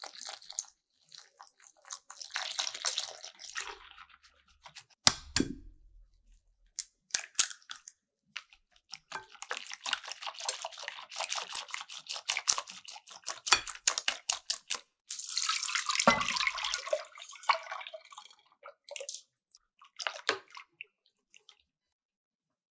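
Kitchen sounds of a cream filling being prepared by hand: utensils and ingredients handled in a bowl. There is a sharp knock about five seconds in, a long stretch of quick, scratchy mixing strokes in the middle, and another knock with a thud around sixteen seconds.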